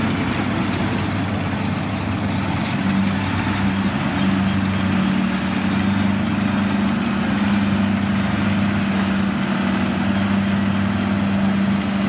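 Rice combine harvester's diesel engine running steadily at constant speed, a continuous low hum with machinery noise over it.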